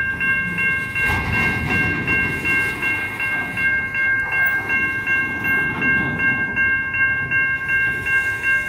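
A Type 3 Safetran electronic crossing bell rings in quick, even strokes, about four a second, over the rumble and wheel noise of coal hopper cars rolling past as the BNSF train slows toward a stop.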